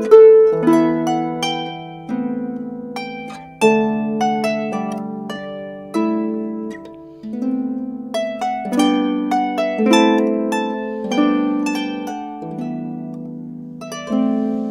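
Celtic lever harp, a Dusty Strings Ravenna 26, playing a slow traditional tune: plucked notes ring and fade, the melody over lower bass notes.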